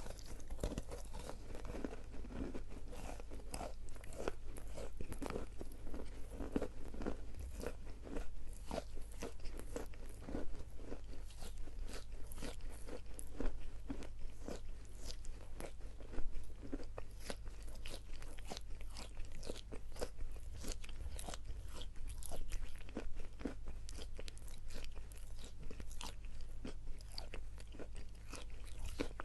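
A person biting and chewing crunchy eating chalk: many short, dry crunches in quick succession.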